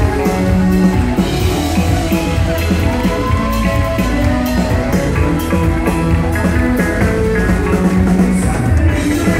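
Live country-rock band playing: strummed acoustic guitar, electric guitar and fiddle over a drum kit keeping a steady beat.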